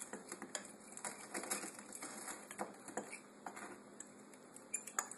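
A metal fork stirring dry powdery ingredients in a bowl, with quick, irregular clicks and scrapes as it knocks against the bowl's sides. The clicking thins out after about three and a half seconds, and there is one sharper click near the end.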